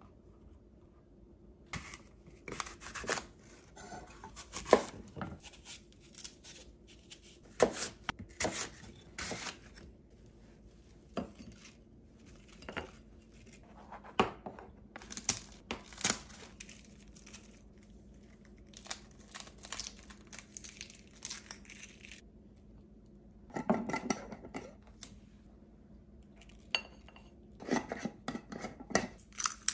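Kitchen-counter handling sounds: a knife cutting through a crisp apple on a wooden chopping board, then apple pieces and two eggs set down on a ceramic plate, heard as a run of separate knocks, clicks and taps.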